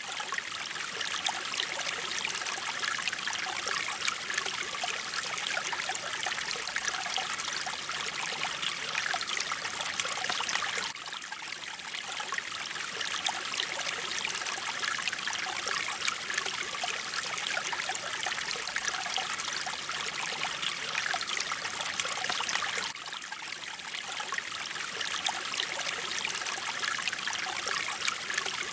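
Mountain stream water running steadily, an even splashing hiss, with a brief slight dip in level about every twelve seconds.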